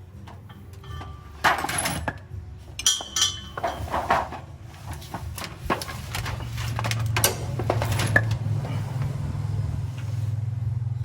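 Metal parts and tools clinking and knocking, with one short ringing clink, during repair work on a công nông farm vehicle; a steady low hum comes in about halfway through.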